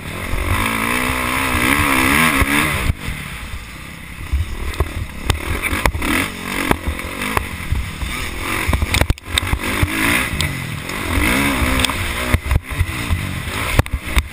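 Dirt bike engine revving, its pitch climbing as it accelerates and dropping sharply at gear changes and throttle-offs, several times over. Heard from the rider's helmet, with a steady rush of wind and occasional sharp knocks.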